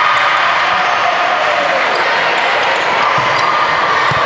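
Volleyball rally in a gym: a steady wash of echoing voices from players and spectators, with a few sharp hits of the ball.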